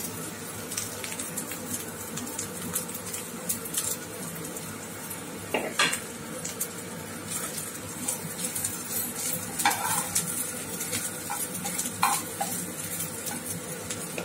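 Slit green chillies sizzling as they fry in butter and ginger-garlic paste in a non-stick pan, stirred with a metal spatula. The spatula now and then clicks and scrapes against the pan, a few times.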